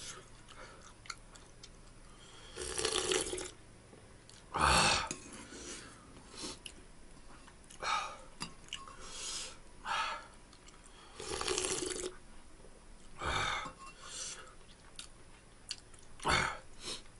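A person slurping milk-based ramen broth from a metal spoon, in short sucking sips every couple of seconds, with small clinks of the spoon against the ceramic bowl in between.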